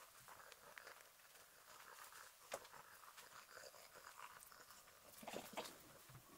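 Near silence with faint scattered clicks and rustles, one sharper click about two and a half seconds in and a small cluster of them a little after five seconds.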